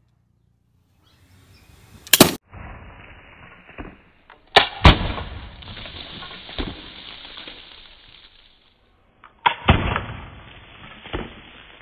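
Homemade wooden crossbow shooting a dart at a soda can: a sharp snap followed by sharp hits as the can is struck and bursts, heard several times a few seconds apart, with a noisy rush between the hits.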